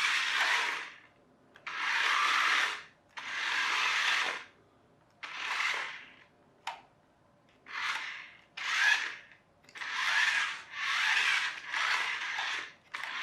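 Fast Lane FLX Microdrive micro RC car's tiny electric motor and gears whirring in short bursts, about ten of them with brief pauses between, as it is driven back and forth across the floor.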